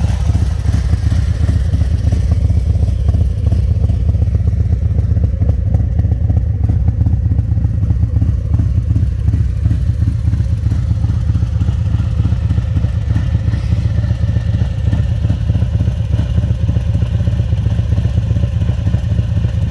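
Harley-Davidson Milwaukee-Eight 114 V-twin idling steadily. The engine has an upgraded CR 485 camshaft, 5.5 injectors, an alloy intake and an Arlen Ness air filter, tuned with a Power Vision.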